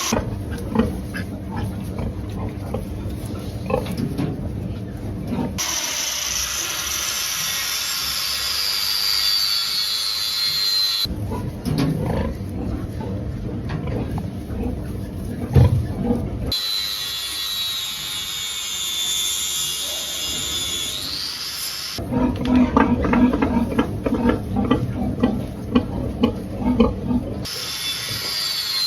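Pigs grunting and squealing in several short stretches, alternating with a high machine whine that slowly slides in pitch.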